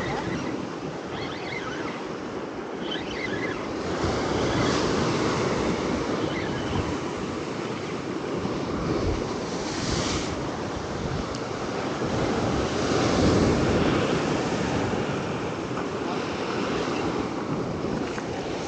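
Ocean surf washing and breaking against a rock ledge, swelling louder about four seconds in and again past the middle, with wind buffeting the microphone.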